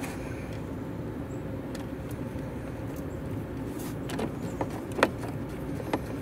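A few small, sharp clicks of a metal nut and threaded rod being handled and started by hand against a plastic grille and badge bracket, over a steady low rumble.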